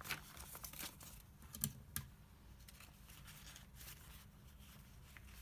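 Paper pages of a handmade junk journal rustling as a page is turned, with a few short taps in the first two seconds, then only a faint low hum.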